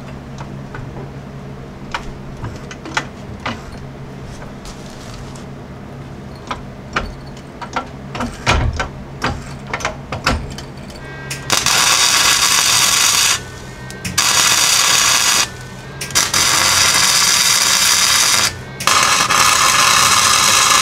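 Scattered clicks and knocks, then, a little past halfway, four bursts of flux-core wire-feed welding from a Lincoln Electric 140 running .035 flux-core wire: a loud, steady crackling hiss lasting one to two and a half seconds each, with short gaps between. These are tack welds fixing the steel rocker tube in place.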